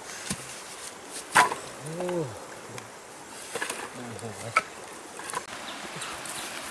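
Short lengths of cut wood clacking together as a bundle is set down on grass and the sticks are arranged, giving several sharp wooden knocks, the loudest about a second and a half in. A few short low calls that rise and fall in pitch are heard between them.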